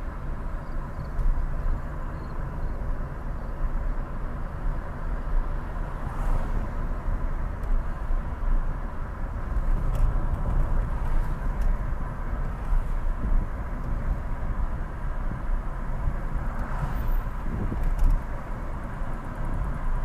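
Steady road and engine noise of a moving car, deepest at the low end, with a faint steady hum running through it.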